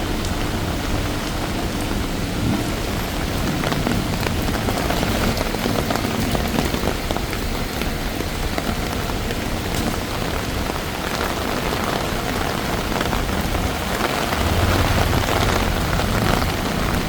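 Steady rain falling and spattering on street surfaces. A low rumble swells briefly about fourteen seconds in.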